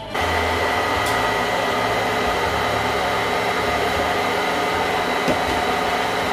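Electric stand mixer running at a steady speed, an even motor whir with a thin high whine, switched on abruptly at the very start.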